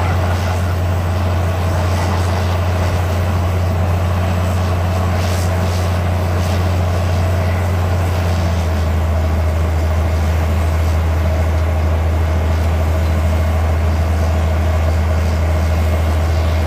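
Truck-mounted water well drill rig running under load, its 900 CFM air compressor driving a down-hole air hammer with a 9-inch bit into rock: a loud, steady, heavy low drone that grows slightly deeper about halfway through.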